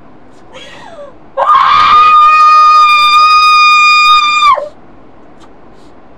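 A loud, high cry held on one steady pitch for about three seconds. It rises at the start and drops off at the end, with a shorter gliding cry just before it.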